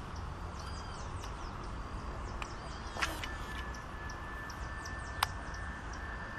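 Birds chirping over a low steady rumble of wind on the microphone. A sharp click comes about three seconds in and another near five seconds, and a thin steady high tone sets in just after the first click.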